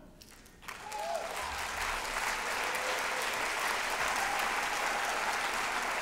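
A large seated audience applauding. The applause breaks out about half a second in and holds steady.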